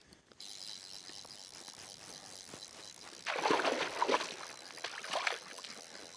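Hooked sea trout thrashing and splashing at the surface close by, in a burst about three seconds in and a shorter one around five seconds, over faint lapping water.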